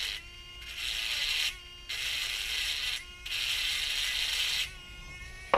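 Small battery-powered engraver, a little engraver motor built into an 18650 flashlight body, buzzing with a high whine as its bit scratches into a part. It runs in short stretches of about a second, stopping briefly in between.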